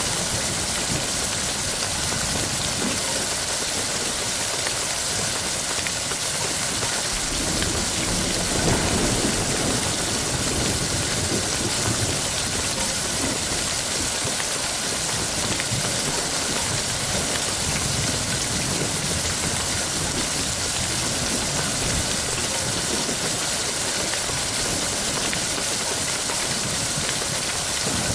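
Steady heavy rain, a dense even hiss of rainfall, with a low rumble of thunder swelling about nine seconds in.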